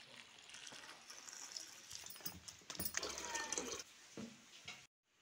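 Wet sliced bottle gourd being handled in a steel bowl: soft, irregular wet shuffling with a few light clicks.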